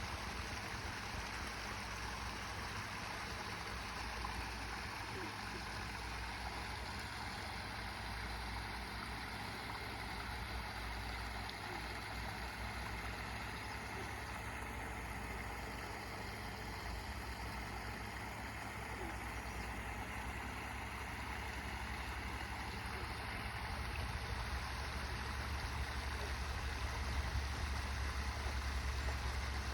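Backyard waterfall splashing: a steady rush of falling water, with a low rumble underneath that swells over the last few seconds.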